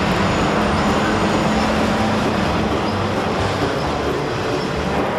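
Norfolk Southern diesel freight locomotives rolling past: a steady rumble of engines and wheels on the rails, with a low engine hum that fades about halfway through.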